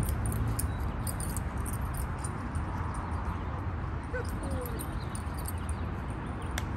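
A dog whining faintly a few times, in short glides about four seconds in, over a steady low rumble.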